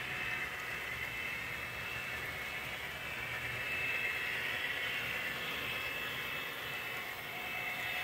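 Model train locomotives running on the layout: a steady whir of their electric motors and gears with wheels rolling on the track, the whine rising and falling slightly.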